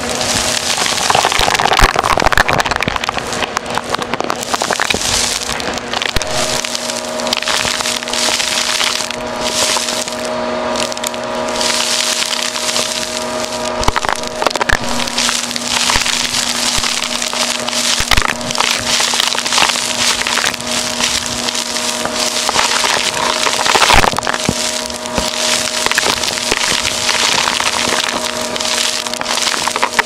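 Vacuum cleaner running with a steady motor hum, under dense crunching and crackling as dirt is sucked up from a rug.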